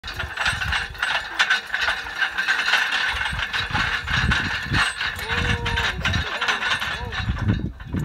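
Horse-drawn metal ring roller clattering and rattling as it is pulled over dry tilled soil, a dense run of clicks and clanks from the rings and frame. A brief pitched sound comes about five seconds in.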